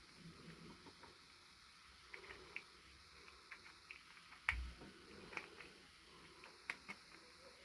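Faint, scattered light clicks and taps, with one sharper knock about four and a half seconds in.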